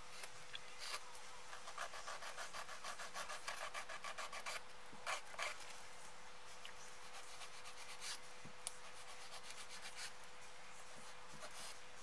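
A hand nail file rasping back and forth across the edge of a fingernail, in quick runs of short strokes (about five or six a second) a couple of seconds in, with two firmer strokes around five seconds and sparser strokes after. The nail's free edge is being filed down to take off the excess tea-bag patch from a crack repair.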